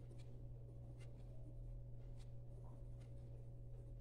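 Pen scribbling across a paper journal page: faint, irregular scratchy strokes.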